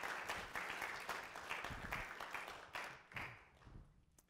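Audience applauding, the clapping thinning out and dying away in the last second or so.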